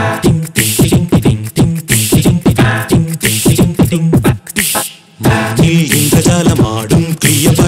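Multitracked a cappella arrangement made from one man's voice alone: a steady vocal-percussion beat under vocal bass and backing harmony parts. It breaks off briefly about five seconds in, then resumes.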